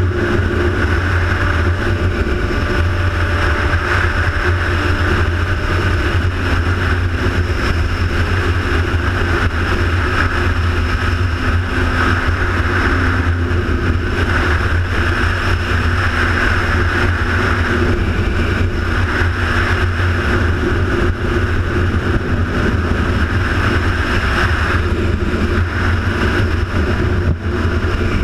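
Steady, loud engine drone and wind rush from a vehicle under way, holding an even level throughout.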